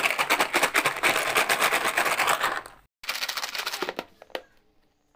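Fried rice-flour crisps rattling inside a closed plastic box as it is shaken to coat them with chilli powder and chaat masala: a fast, dense rattle that cuts off about two and a half seconds in, starts again briefly, and ends with a few single clicks.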